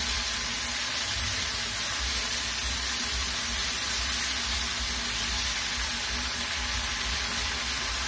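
Lima beans and tomato-chilli paste sizzling steadily in hot oil in a small frying pan over a gas burner.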